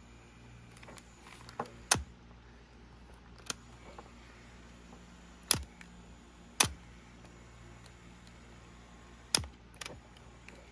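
Sony WM-FX28 Walkman playing a blank cassette: no music, only a faint steady hum and hiss. Several sharp clicks and taps from handling break it, the loudest about two, five and a half, six and a half and nine and a half seconds in.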